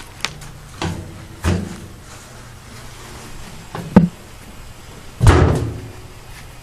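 Potatoes being dug out of a large pot of soil by hand: a few separate dull knocks and thumps. The loudest comes about four seconds in, and a longer scraping thump follows about five seconds in.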